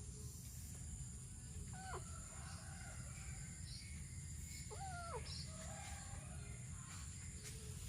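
Two short kitten meows, one about two seconds in and a longer one about five seconds in, over a steady low rumble and a faint high hiss.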